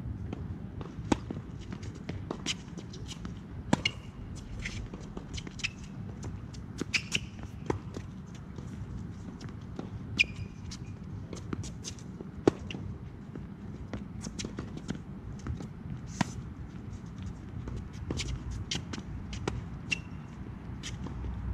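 A tennis rally on a hard court. Sharp pops of the racket hitting the ball and the ball bouncing come at irregular intervals, with brief high shoe squeaks and footsteps in between, over a steady low rumble.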